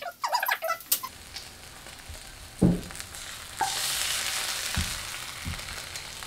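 Eggs frying in hot oil in a pan: a steady sizzle that gets louder about three and a half seconds in, with a few dull knocks.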